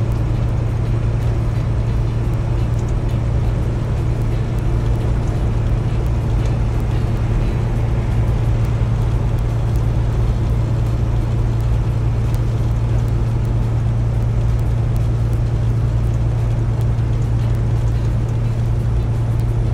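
Semi truck cab at highway cruising speed: the diesel engine's steady low drone mixed with tyre and road noise, even and unbroken throughout.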